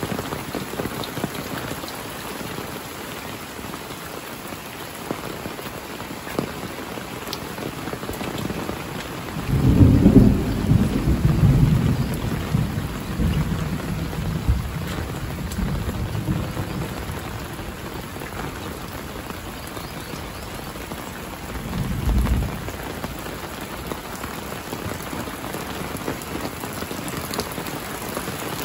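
Heavy rain falling steadily, with a roll of thunder that rumbles in about ten seconds in and fades over several seconds, and a brief second rumble later on.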